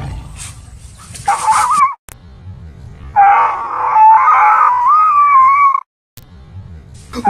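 A street dog howling: a short howl about a second and a half in, then a longer howl of nearly three seconds with a wavering pitch that cuts off suddenly.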